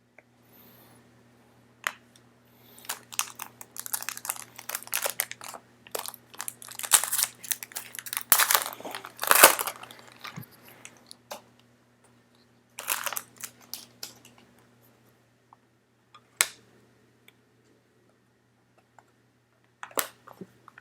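Foil wrapper of a trading-card pack crinkling and tearing as the pack is opened, in dense bursts of crackling with a few single sharp crackles later on.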